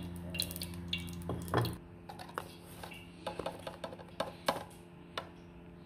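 Dishes and cutlery clinking: a bowl knocking against a plate, then a fork tapping and scraping in a small glass bowl, in scattered sharp clicks with one louder clatter about one and a half seconds in. A steady low hum underneath cuts off just under two seconds in.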